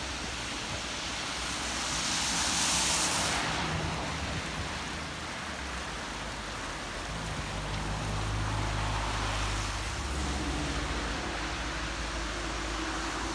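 Wind rushing over the microphone, a steady hiss that swells in a gust about two to three seconds in, with a low rumble underneath later on.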